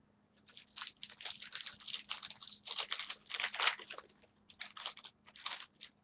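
Trading card pack wrapper crinkling and tearing as a pack is opened, an irregular run of crackles with a short pause partway through.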